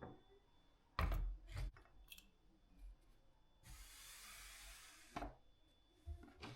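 Household objects handled and set down on a hard surface: two sharp knocks about a second in and a smaller click after them, then a steady hiss lasting about a second and a half, then another knock.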